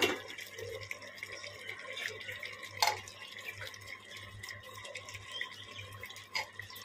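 Chunks of raw potato dropped by hand into a steel pot of mutton in thin yogurt gravy, landing with a few separate wet plops and splashes over a faint steady hum.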